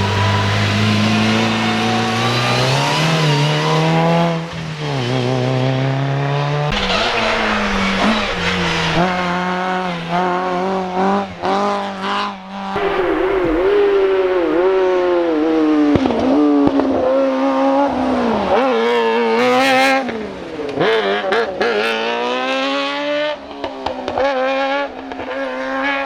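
Hill-climb race car engine revving hard, its pitch climbing and dropping again and again through gear changes and lifts off the throttle.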